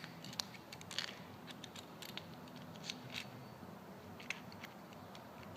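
Light, scattered clicks and taps of small metal gas-cap parts being handled as a bolt is dropped down through the cap assembly.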